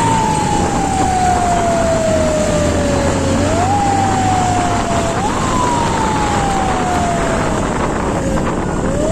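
Police siren wailing: the tone sweeps up quickly, then falls slowly over one to three seconds, the cycles uneven in length. Steady engine and road noise runs underneath.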